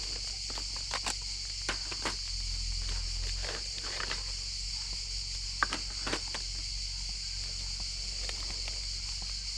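Rustling and scattered clicks as items are pulled out of a nylon backpack, the sharpest click about halfway through, over a steady high insect drone.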